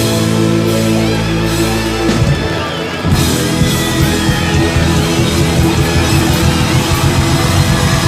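Live hard rock band: a held, sustained chord breaks off about two seconds in, and about a second later the full band comes in with drums and a lead electric guitar playing bending lines.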